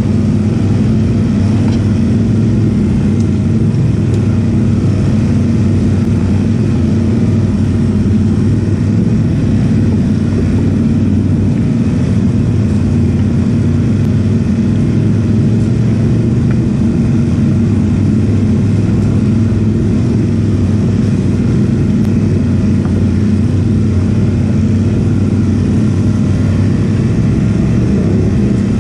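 ATV engine running at a steady, even speed with a constant loud drone and no clear revving.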